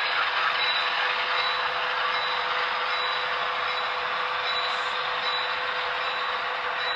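HO scale model train running on the layout track: a steady whir of the locomotive's motor and wheels on the rails, with light clicks about once a second.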